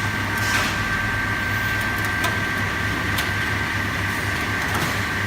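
Electric ice-block cutting machine running steadily: a constant motor hum with a steady whine, and a couple of sharp ticks in the middle.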